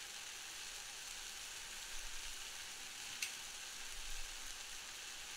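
Minced onions sizzling steadily in a pot, the faint 'jee' hiss of onions being sautéed. Most of their water has cooked off and they are starting to colour. A single sharp click about three seconds in.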